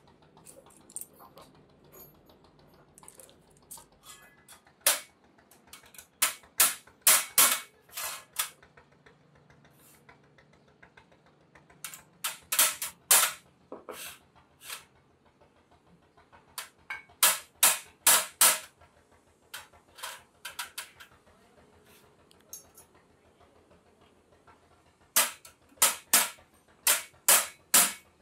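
Sharp metal taps and clinks in quick runs of several strokes with pauses between, as steel coil damper springs are fitted into the hub of a truck clutch disc.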